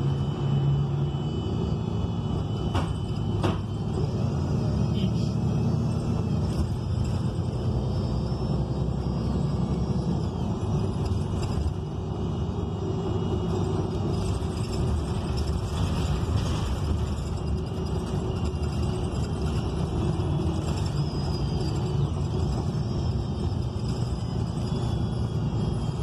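Interior ride noise of a 2019 ENC Axess transit bus with its Cummins Westport L9N natural-gas engine and Voith D864.6 automatic transmission: a steady low rumble of engine and road, with faint shifting drivetrain tones and light rattles and clicks from the cabin. The air conditioning is off, so no fan noise is mixed in.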